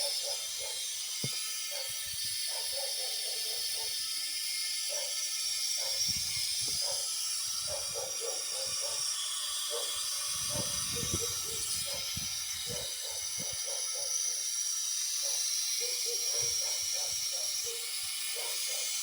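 Refrigerant hissing out of a Lada Priora's air-conditioning system as it is bled off, with a thin whistle joining in about six seconds in and stopping shortly before the end.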